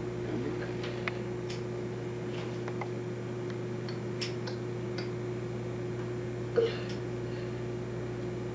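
Scattered light snips of hair-cutting scissors, irregular sharp clicks, over a steady hum, with one brief louder sound about two-thirds of the way through.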